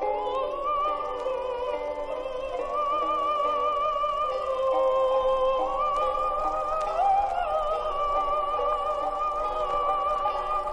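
Music: a high melody held in long notes with a wide, even vibrato, over sustained chords.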